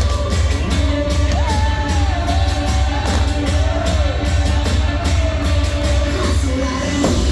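Pop song with a sung melody over a heavy bass and a steady beat, played loud.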